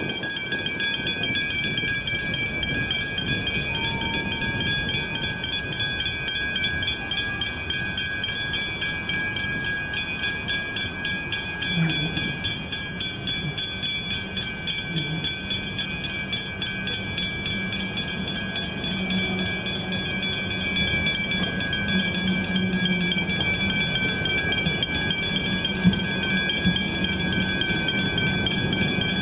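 Railway level crossing warning bells ringing continuously with a rapid, even clang, warning that a train is approaching. Beneath them runs a low rumble, with a low hum that grows louder in the second half.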